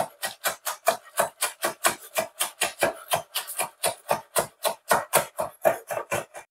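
Kitchen knife chopping spring onions on a bamboo cutting board: a steady run of quick blade strikes on the board, about five a second, stopping suddenly near the end.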